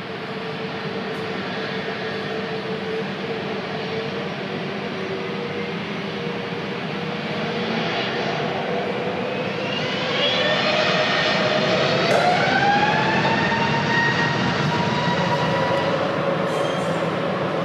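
Jet airliner engines running, then spooling up about ten seconds in: a whine that climbs in pitch and levels off as the sound grows louder.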